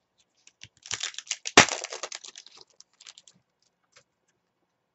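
Trading cards being handled on a tabletop: a quick run of clicking and rustling about a second in, with one sharp snap in the middle, then a few scattered ticks.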